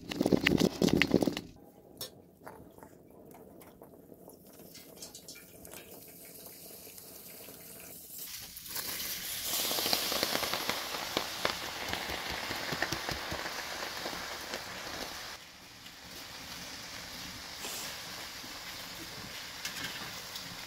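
Food cooking in a hot pot, a crackling sizzle that swells about eight seconds in and eases a little near fifteen seconds, after a short loud burst at the very start.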